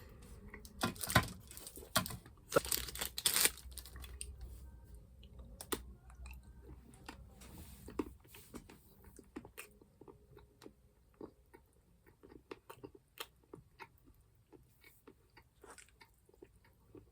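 A person biting and chewing a chocolate lollipop close to the microphone: several louder crunching bites in the first few seconds, then softer, scattered chewing and mouth clicks.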